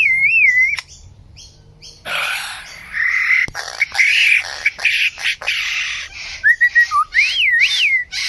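A bird calling: wavy whistled notes that swoop up and down near the start and again near the end, with harsh squawking calls between them.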